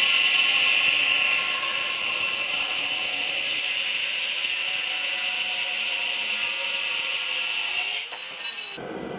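Angle grinder with a thin cutoff wheel cutting through a steel-and-copper Cu Mai damascus billet held in a vise: a steady high-pitched whine that eases a little after about a second and a half. It stops about a second before the end.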